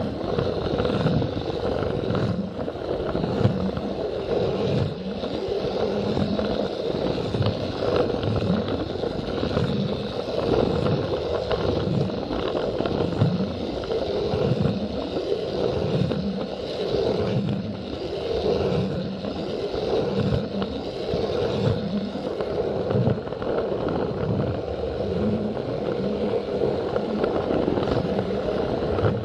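Plarail toy train's small battery motor and plastic gearbox whirring steadily as it runs along plastic track, with a knock from the wheels roughly once a second as they pass the rail joints.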